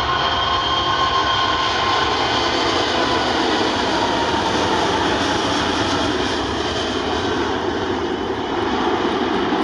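Airbus A380-842's four Rolls-Royce Trent 900 turbofans running at takeoff thrust during the takeoff roll and rotation, a loud steady rush with a whining tone that drops slightly in pitch about halfway through as the aircraft passes.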